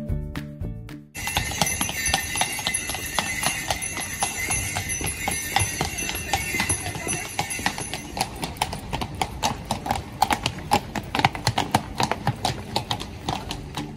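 A carriage horse's hooves clip-clopping on cobblestones, a fast run of sharp clops, with a high steady ringing over them for the first half. Background music cuts off about a second in.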